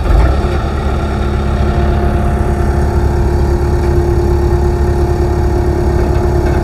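Skid steer loader's engine brought up to speed, with a sudden rise in level at the start, then running steadily with a constant whine over the engine note as the loader moves forward on the trailer.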